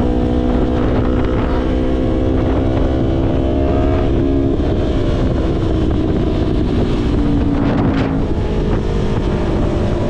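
Yamaha YZF-R3's parallel-twin engine running under way at road speed, its note shifting in pitch about four seconds in and again near eight seconds, over a steady rush of wind on the microphone.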